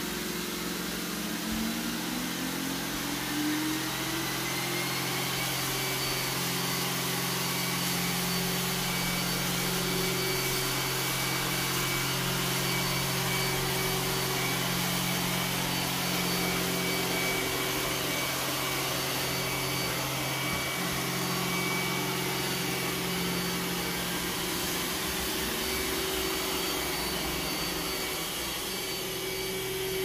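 iRobot Roomba s9 robot vacuum running, its suction fan whining up in pitch over the first few seconds and then holding a steady hum as it vacuums.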